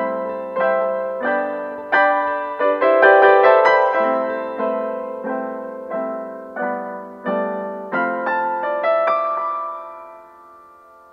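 Solo piano music: notes and chords struck about every half second, the last chord ringing out and fading away near the end.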